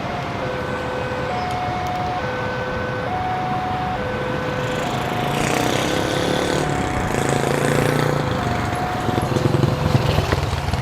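Railway level-crossing warning siren sounding an electronic two-tone alarm, each tone held a little under a second and switching back and forth. From about halfway in, heavy engine noise and rumble build over it, loudest near the end.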